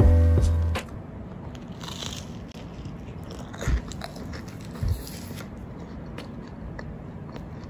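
Biting into crisp peanut butter and banana toast, with two short crunches about a second apart near the middle. Background music fades out in the first second.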